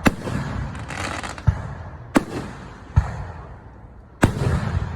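Aerial fireworks going off: five sharp bangs a second or less apart, with crackling and rumbling between them.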